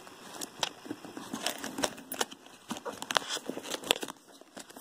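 A leather barrel handbag being handled: a series of irregular light clicks and short rustles.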